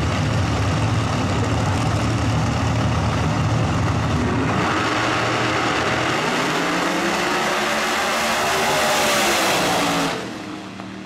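Two drag-race cars, one of them a twin-turbocharged Mustang, running loudly at the starting line, then launching about six seconds in. Engine pitch rises as they accelerate hard down the track, and the sound falls away abruptly about ten seconds in.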